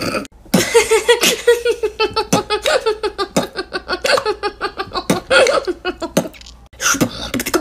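A woman laughing hard: a long run of quick, repeated "ha" sounds, from about half a second in until about six seconds in.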